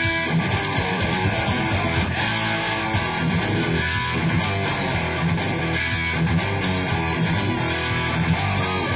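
Electric guitar, an Epiphone Les Paul Prophecy, played through a Marshall 1959HW 100-watt valve head and 4x12 cabinet, over a recorded rock song.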